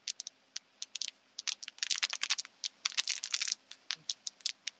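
Plastic crinkling right at an open microphone on a video call: irregular clusters of sharp crackles, coming through as pretty heavy noise.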